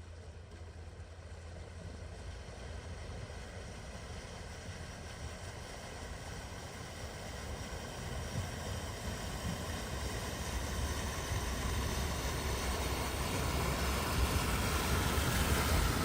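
A vehicle driving through floodwater, its engine and the rush of water growing steadily louder as it comes closer.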